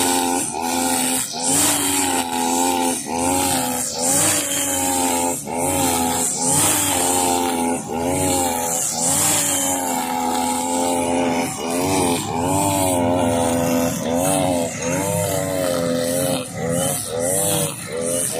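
Husqvarna 542RBS backpack brush cutter's two-stroke engine running at high revs, spinning 2.2 mm nylon line through grass. The engine pitch dips and recovers about once a second as the line bites into the grass on each sweep, over a hiss of the whipping line.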